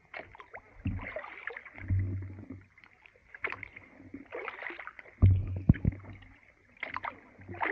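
Kayak paddles dipping and splashing while the kayaks push through slushy brash ice, with scattered knocks and several dull thumps against the hulls, the loudest a little after five seconds in.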